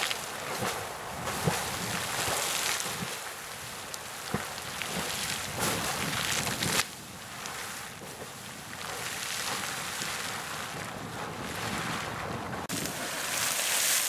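Sawmill Geyser, a fountain-type geyser, erupting: a steady rushing splash of water thrown up from its pool, with a few brief louder bursts as spikes of water break.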